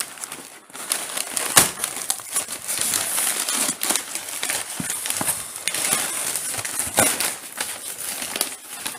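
Cardboard parcel being handled and torn open: rustling and crinkling of cardboard and packing tape, with scattered sharp cracks, the loudest about a second and a half in.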